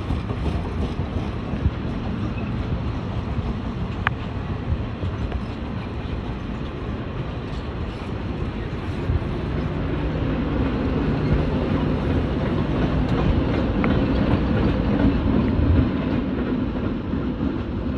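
Passenger cars of a steam excursion train rolling past, a steady rumble of wheels on rail that grows a little louder in the second half, with two brief high squeaks about ten seconds apart.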